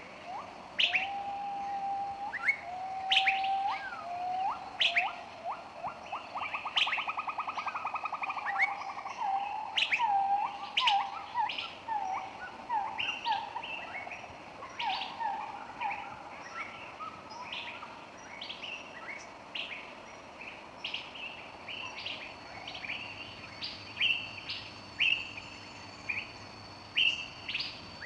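A bird chirping over and over in short, sharp notes. In the first half there are lower whistled notes and a fast buzzy trill about seven seconds in. In the second half a faint, steady high tone runs beneath the chirps.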